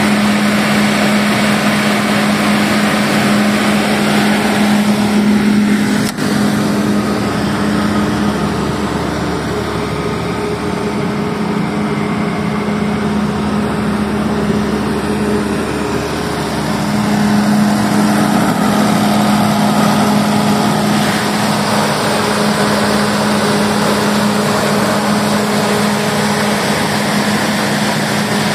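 200 kVA FG Wilson diesel generator set running steadily at constant speed: a steady mechanical hum with a strong low drone.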